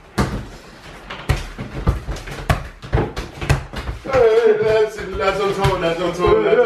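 A football being kicked and bouncing on a hard floor: short sharp thuds about twice a second. About four seconds in, background music with a singing voice comes in over it.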